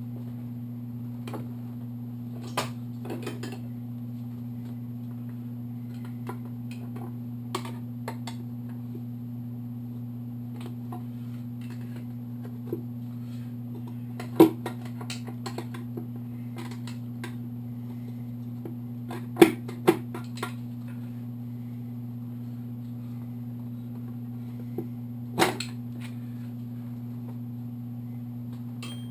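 Scattered metallic clinks and knocks of tools and engine parts being handled during a motorcycle engine teardown, with a few louder knocks past the middle and near the end, over a steady low hum.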